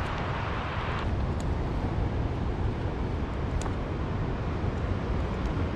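Wind buffeting the microphone, a steady rumble with hiss, the brighter part of the hiss easing off about a second in.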